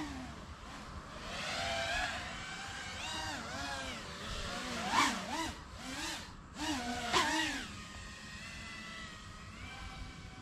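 FPV quadcopter's brushless motors whining, the pitch rising and falling with the throttle as the drone flies. Two sharp throttle punches about halfway through are the loudest moments, then the whine settles lower and steadier near the end.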